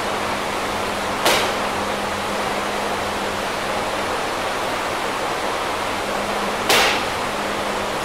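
Two sharp, forceful breaths, gasps from a lifter straining through barbell overhead press reps, about a second in and again near the end, over a steady hiss and low hum.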